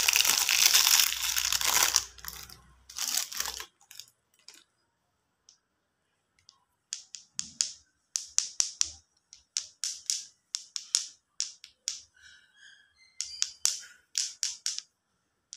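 Foil-lined plastic lollipop wrapper crinkling loudly as it is pulled off, for about two seconds and again briefly a second later. After a lull, a long run of short, sharp crackles, several a second in quick bunches, as the wrappers are handled.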